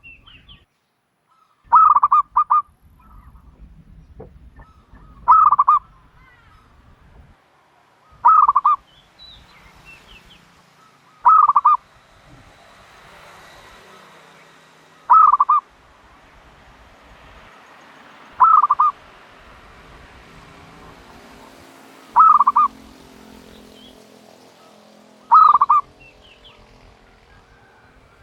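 Turtle dove calling: eight short, loud cooing calls, evenly spaced about every three and a half seconds, some broken into two or three quick notes.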